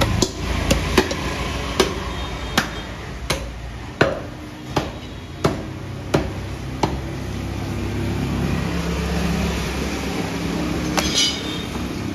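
Heavy butcher's cleaver chopping through beef onto a wooden log chopping block: about a dozen sharp chops, roughly one every 0.7 seconds, ending about seven seconds in. After that a low engine rumble from passing traffic takes over.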